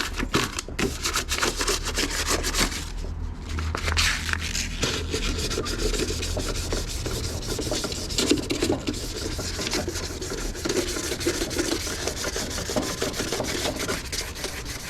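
1000-grit sandpaper rubbed by hand over the factory-painted engine bay of a Nissan 350Z: continuous rapid back-and-forth scuffing strokes, scuffing the paint so new paint will stick.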